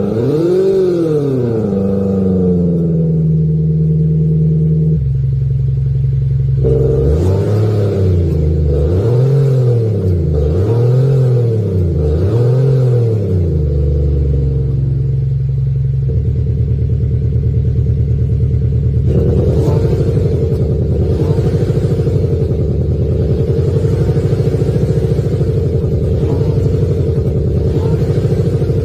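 Active exhaust sound generator on a Mercedes E450 Coupe playing a synthetic engine sound: the revs rise and fall in about four quick blips, then settle to a steady idle. About two-thirds of the way in, a deeper, rougher idle setting takes over.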